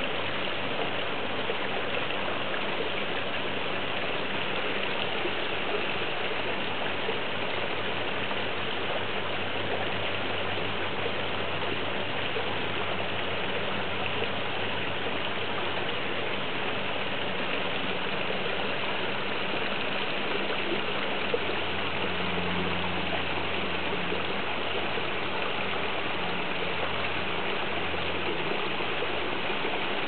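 Steady rushing of running water in a koi pond, with a low hum beneath it that grows stronger about two-thirds of the way through.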